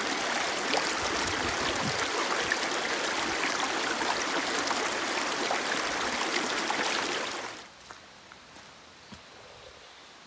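Shallow mountain stream running and splashing over rocks, a steady rush of water. It cuts off sharply about seven and a half seconds in, leaving a faint hush with a few light ticks.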